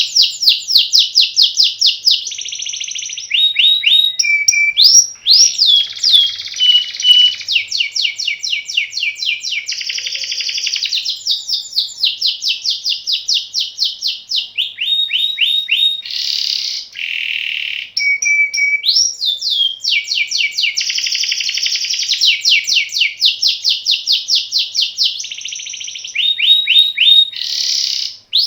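Domestic canary singing a long, unbroken song of rapid rolling trills, moving every second or two from one run of quickly repeated notes to another, some sweeping down in pitch.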